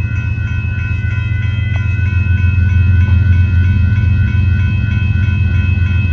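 Railroad crossing bell ringing steadily at an active gated crossing, over the loud low rumble of a freight train that grows louder about three seconds in.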